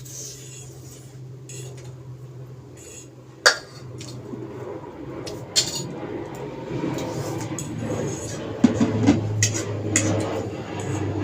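Cutlery clinking and scraping against dishes during eating, with a few sharp clinks, the loudest about three and a half seconds in, and busier clatter in the second half.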